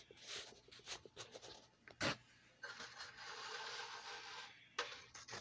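Faint handling noises from a plastic scale model being moved about by hand: short rubs and light clicks, a sharper click about two seconds in, then a steady scrape lasting about two seconds.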